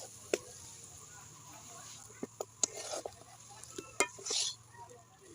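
Kitchen utensil sounds: a spoon clicking and scraping against a pot or jar, with a handful of sharp clinks and a short scrape about four seconds in.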